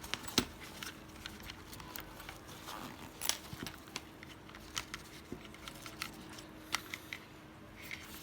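Scattered light clicks, taps and rustles as the clamp meter's case and accessories are handled and taken out of their packaging, with a faint steady hum underneath.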